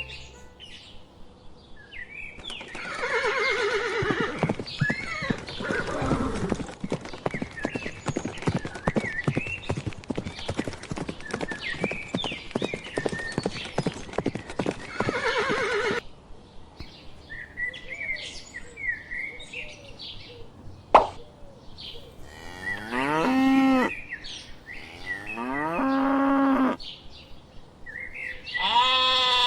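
A run of farm-animal sounds. First, for about fourteen seconds, a fast clatter of horse hoofbeats with whinnies over it. Then, after a pause and a single sharp click, come three long, drawn-out lowing calls of cattle, the last near the end.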